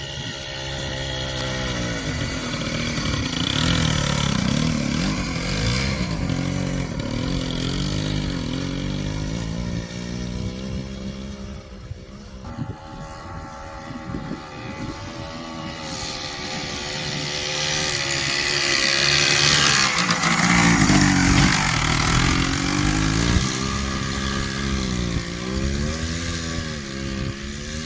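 Engine of a Suzuki vehicle used for crop spraying, running with its speed rising and falling again and again; it dips briefly about twelve seconds in.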